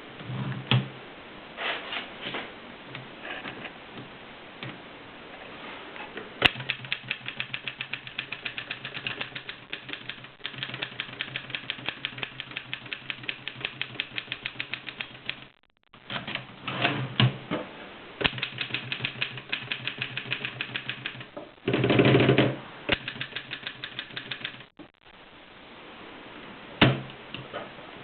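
Mercedes manual typewriter being typed on: a few scattered key strikes, then steady fast runs of keystrokes, with a louder, longer mechanical rattle about two-thirds of the way through.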